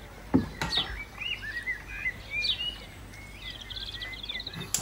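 A bird chirping and twittering in short rising and falling chirps, with a quick trill about three and a half seconds in. A sharp knock just under half a second in is the loudest sound, with another faint knock near the end.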